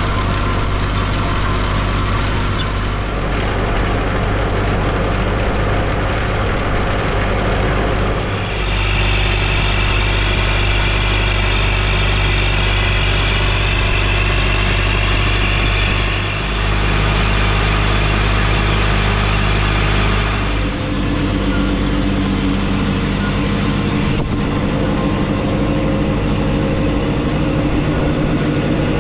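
Tractor engine running steadily. A higher hiss joins it from about 8 to 16 seconds, and after about 21 seconds the engine note changes to a clearer, more pitched hum.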